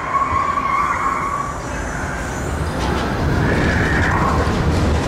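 Test Track ride car running at speed along its track: a steady low rumble that grows a little louder about three seconds in, with a tyre-squeal-like screech over the first second and a half.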